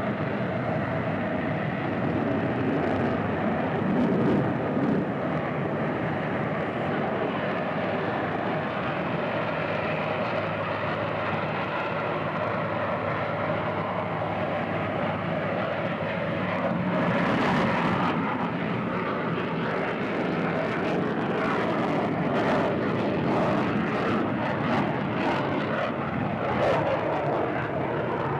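Fighter jet engines heard as a steady, continuous rush of noise that swells briefly a little past the middle.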